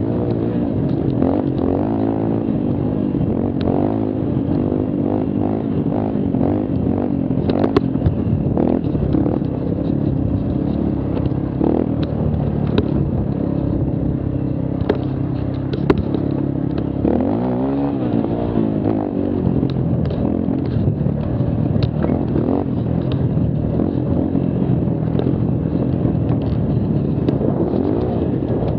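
Mini quad's small engine running under throttle as it is ridden along a bumpy dirt trail, its pitch rising and falling with the throttle, with a clear drop and climb back up a little past halfway. Sharp knocks and rattles from the quad jolting over the rough ground come through now and then.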